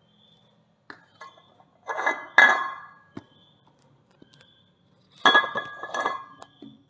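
Metal clinking and clattering in two bursts about three seconds apart, each with a brief ringing.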